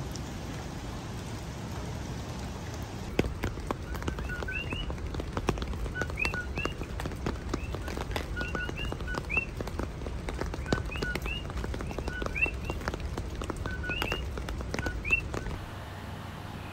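Hawaiian honeycreepers calling, short rising notes given in pairs again and again from about four seconds in, over steady rain with raindrops ticking on an umbrella overhead.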